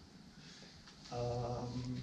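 A man's drawn-out hesitation sound, one flat held 'eee' at a steady pitch, starting about a second in after a moment of low room tone.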